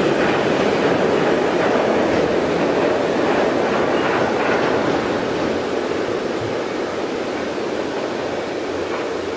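Freight train of tank wagons rolling away along the track, a steady rumble of wheels on rail that slowly fades.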